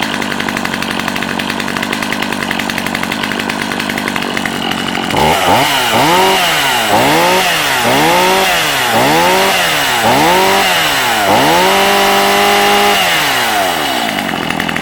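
Stihl MS250C two-stroke chainsaw idling, then revved up and down about six times in quick succession, held at high revs for a second or so, and let back down to idle.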